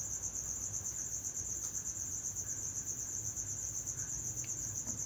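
Insects trilling steadily in the background: one continuous, high, finely pulsing tone.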